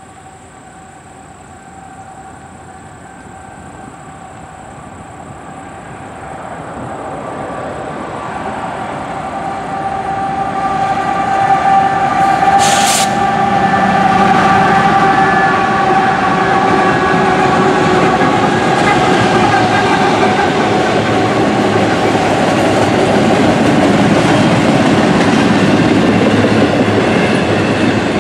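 Norfolk Southern diesel freight locomotives approaching and growing steadily louder until they pass about halfway through, then the steady rolling of double-stack intermodal container cars.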